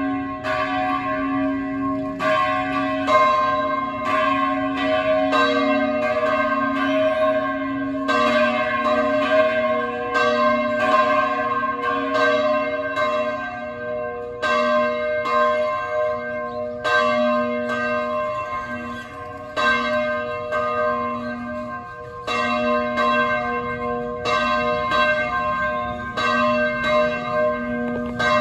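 Colima Cathedral's church bells ringing a festive repique: several bells struck in quick succession, their tones ringing on and overlapping, with a brief easing of the strokes about two-thirds of the way through.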